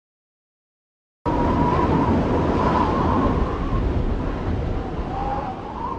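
Silence, then about a second in a loud rushing, rumbling noise starts abruptly, with a faint wavering whistle in it, slowly fading toward the end.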